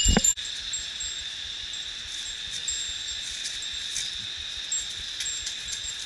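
A hiker's bear bell jingling now and then, small high rings, over a steady high-pitched drone. Heavy footsteps at the start cut off suddenly about a third of a second in.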